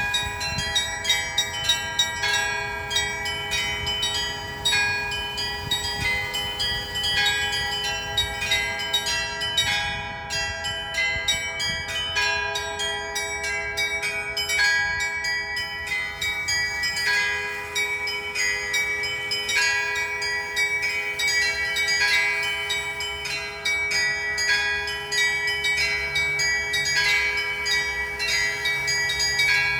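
Church bells ringing in a full peal: small bells struck several times a second in quick, overlapping patterns over the long, sustained ringing tones of larger bells.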